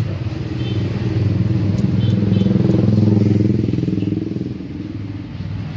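A motorcycle engine running close by as it passes, growing louder to a peak about three seconds in and then fading.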